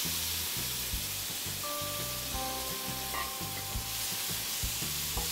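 Small dried fish sizzling as they hit hot spiced oil in a nonstick frying pan, the wet fish setting the oil hissing steadily. A steel spoon stirs them toward the end.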